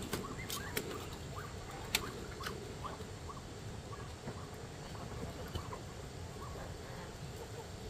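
Woven bamboo cage creaking and clicking with scattered light scratches and squeaks as black ducks are pushed into it and shift about inside.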